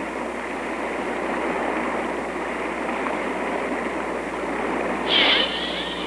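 Waterfall pouring into a deep pool: a steady rush of water, with a brief louder burst about five seconds in.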